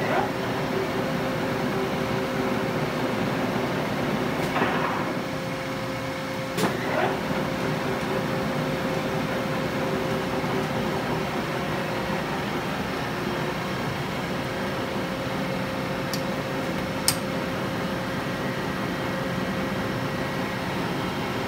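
LeBlond engine lathe running with its spindle turning: a steady mechanical hum with a constant whine. A few brief clicks and knocks break in, one sharp click near the end.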